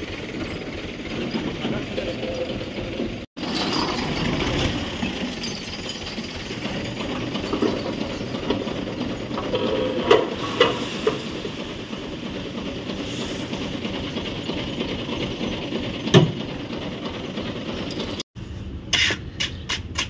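Engine-driven road construction machinery running, with scattered knocks and scrapes. Near the end comes a rapid, regular clatter of about four beats a second.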